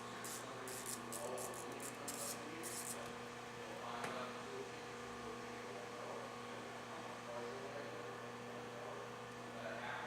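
A socket ratchet clicking in quick short runs as the shift knob's screw is backed out with a 5mm Allen socket, over the first three seconds; a steady electrical hum continues under it.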